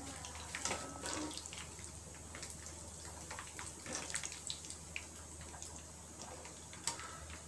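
Oil sizzling in a pan as cashews and sesame seeds fry, with the steel ladle clicking and scraping against the pan as they are stirred.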